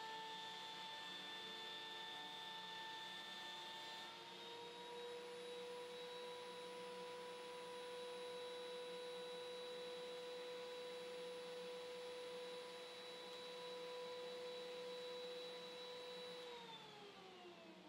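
A woodshop machine's electric motor running with a steady whine, its pitch stepping up slightly about four seconds in. Near the end it is switched off and winds down, its pitch falling.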